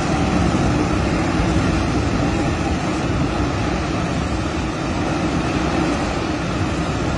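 Landslide of earth and rock pouring down a mine pit wall into a flooded pit: a loud, steady rushing noise that does not let up.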